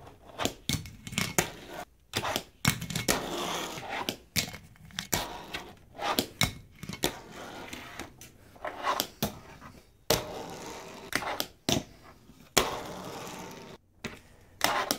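Fingerboard being skated on a tabletop: wheels rolling in stretches, broken by many sharp clacks as the small deck pops and lands.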